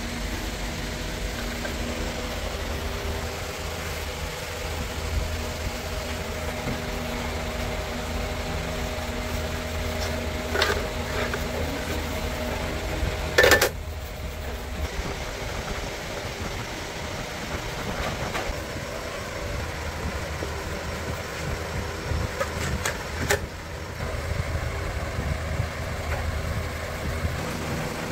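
A steady mechanical drone with a few metal knocks, and one loud clank about halfway through. The pitched part of the drone stops at the clank.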